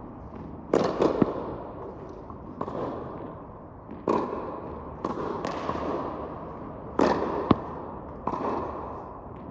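Tennis serves: sharp pops of racket striking ball and of the ball hitting the court, about ten in all, some in pairs about half a second apart. Each pop rings on in a long echo through the indoor tennis dome.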